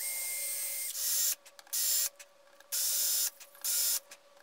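Cordless drill run in short bursts, about five squeezes of the trigger lasting half a second to a second each, drilling holes into wood.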